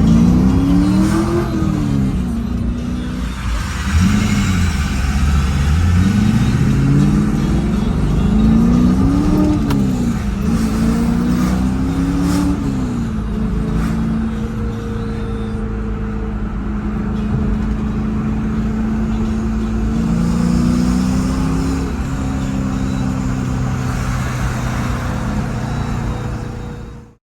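2002 Pontiac Trans Am Firehawk's 5.7-litre LS1 V8 revving up and down several times, then running at a steady speed with one small rise, before the sound cuts off abruptly near the end.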